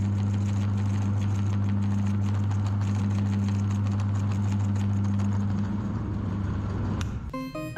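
Electric meat grinder motor running with a steady hum and rapid clicking, then winding down and stopping about six or seven seconds in. Music starts just before the end.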